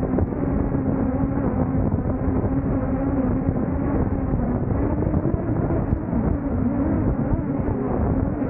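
DJI Air 2S drone's propellers and motors buzzing steadily in flight, close to the microphone: a continuous droning hum whose pitch wavers slightly.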